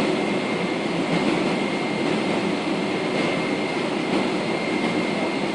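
Steady cabin noise of a Boeing 777-300ER taxiing after landing: an even rush of air and idling engines with a thin, steady whine.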